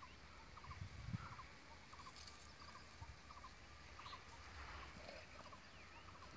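Near silence: faint outdoor ambience with a faint, small chirping, short clusters of quick notes repeating about every half second, and a soft low thump about a second in.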